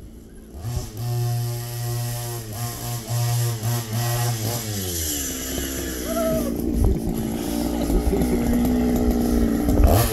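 Go-Ped Trail Ripper scooter's small two-stroke engine revving up about a second in and holding high revs under throttle, then falling in pitch around halfway as the revs drop, running lower, and revving up again near the end.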